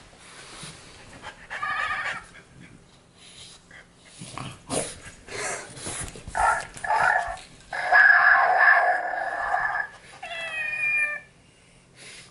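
Babble Ball interactive pet toy playing recorded animal sounds from its small speaker: a string of short calls, the longest and loudest lasting about two seconds, set off by being touched.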